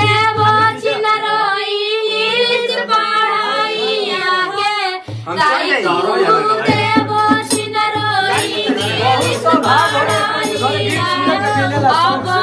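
Women singing a village wedding gaali song, the teasing insult song sung at a tilak party: a high, held melody with wavering pitch. A steady low drum beat joins about halfway through.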